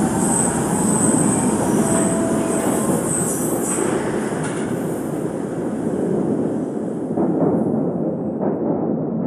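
London Underground train running, a steady rumble with high wheel squeal through the first few seconds. The squeal and hiss fade away about eight seconds in, leaving the low rumble.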